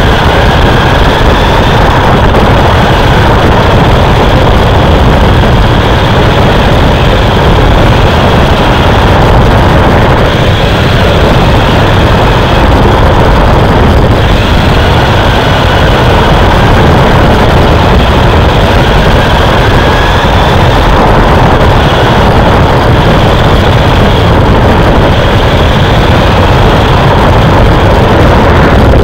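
Race car engine running under way, heard from an onboard camera in the cabin: very loud and continuous, mixed with road and wind noise, its pitch drifting up and down a little as the car speeds up and slows.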